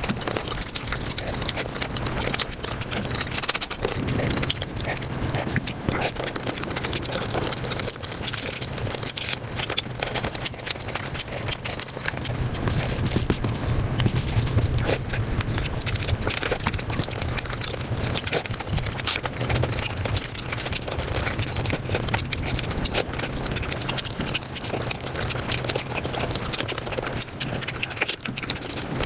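Mukbang eating sounds sped up five times: a dense, fast run of chewing and mouth clicks over a steady low hum.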